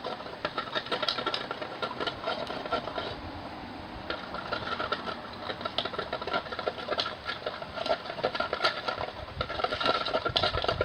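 A pen stirring hand soap and water in a container: a fast, continuous run of small clicks and scrapes as it knocks against the sides.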